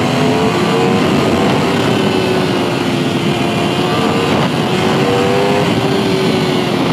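Aprilia RSV4 RF superbike's V4 engine accelerating hard, its note climbing as the bike picks up speed, with heavy wind rush on the onboard microphone.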